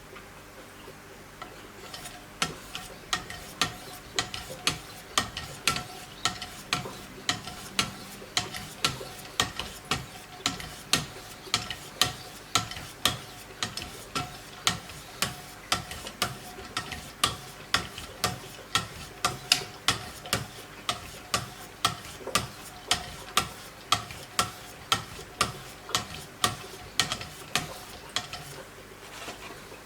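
Knife sharpening on a Wicked Edge guided system: the stones on the guide arms stroke along the blade's edge, a sharp scraping click about twice a second in an even rhythm. The strokes start about two seconds in and stop near the end.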